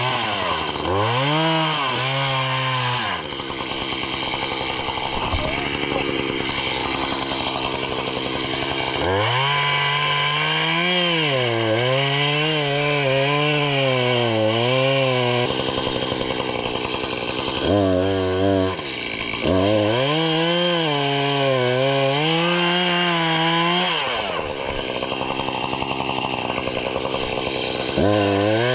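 Echo two-stroke chainsaw cutting into a standing tree trunk: the engine revs up to full throttle with its pitch wavering as the chain works through the wood, then drops back to idle, four or five times over.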